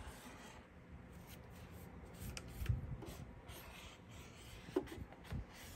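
Faint scratching and rubbing of a pen tracing along the edge of a cardboard template held pressed down, with a few soft knocks as it is handled.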